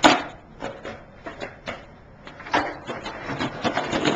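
Skateboard on concrete: a few separate sharp clacks of the board in the first two seconds, then the rough rumble of wheels rolling over the pavement with louder knocks near the end.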